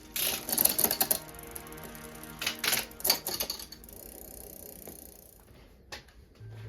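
Rapid ratchet-like mechanical clicking in two bursts of about a second each, the kind made by a bicycle's freewheel or a ratchet tool, with one more click near the end; background music plays underneath.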